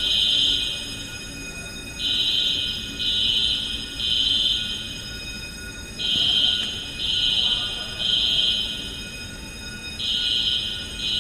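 Fire alarm horn sounding in repeated groups of three long, high-pitched beeps, a group about every four seconds. This is the temporal-three evacuation signal, given when the system has detected a fire.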